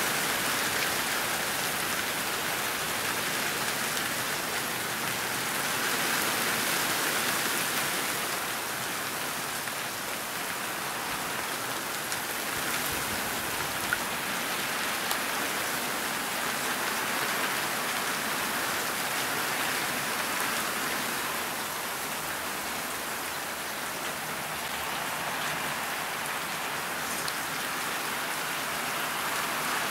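Steady rain falling, an even hiss with a few faint drop ticks about halfway through.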